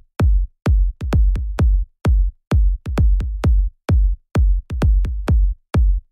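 Electronic background music with a strong, regular kick-drum beat, about two beats a second.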